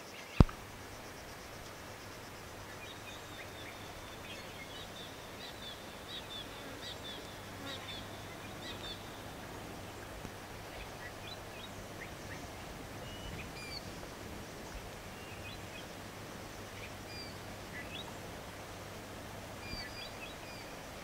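Scattered short bird chirps and calls over steady background noise and a low hum, with one sharp click about half a second in as the door handle is worked.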